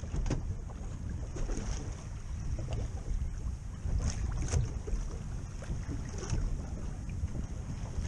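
Wind buffeting the microphone aboard a small fishing boat at sea, a steady low rumble with hiss over it, and a few sharp knocks scattered through.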